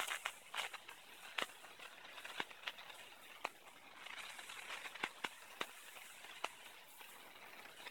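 Fireworks popping and crackling: irregular sharp pops, about one or two a second, with a stretch of hissing about four seconds in.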